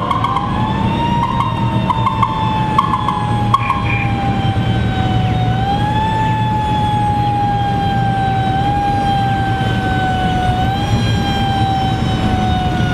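Mechanical siren on an antique fire truck wailing: it winds up in the first second, then slowly sags in pitch and is pushed back up three times. Underneath is the steady low running of the Model T engines, and several short toots come in the first few seconds.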